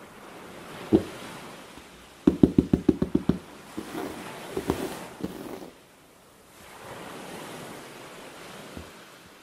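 Ocean waves washing in slow swells. A single knock comes about a second in, then a quick run of about ten sharp taps and a few softer clicks.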